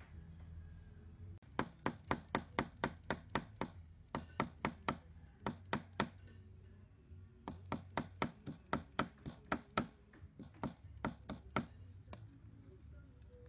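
Cleaver chopping soaked black fungus on a round wooden chopping block, mincing it. Quick, sharp strikes about four or five a second come in two runs with a short pause between, starting about a second and a half in and stopping near the end.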